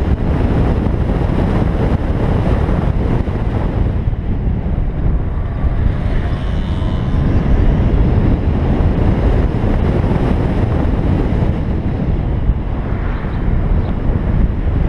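Steady wind buffeting on the microphone of a camera on a moving electric BMW i3s, over a low road and tyre rumble. No engine note is heard.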